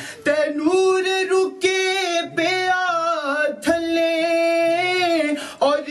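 A man singing a naat into a microphone, drawing out long, wavering notes without clear words, in phrases broken by short breaths, the longest held for well over a second near the middle.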